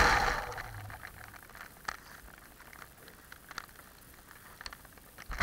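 Cheerson CX-20 quadcopter's motors and propellers winding down and stopping within the first second. After that there is a faint hiss with a few scattered small clicks.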